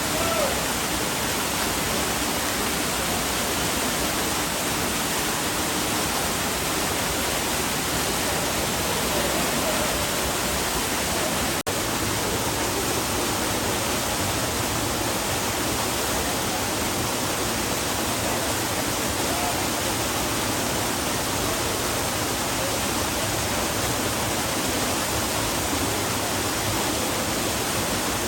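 Waterfall pouring into a pool: a loud, steady, even rush of water, with a momentary gap about twelve seconds in.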